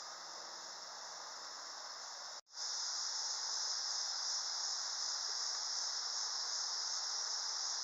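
Steady high-pitched drone of an insect chorus. It becomes louder after a brief break about two and a half seconds in.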